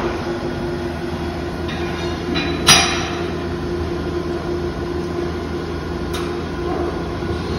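Steady mechanical drone of running machinery with a constant hum, broken by a sharp knock nearly three seconds in and a lighter one about six seconds in.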